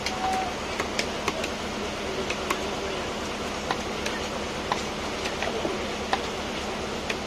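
A long knife knocking on a wooden log chopping block as a seer fish (surmai) is cut into steaks: about a dozen sharp, irregularly spaced knocks over a steady background hiss.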